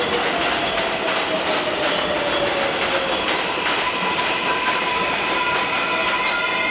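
R188 subway train pulling into the station: a steady rush of wheel and track noise with a motor whine slowly falling in pitch as it slows. About two-thirds of the way in, steady higher whining tones join.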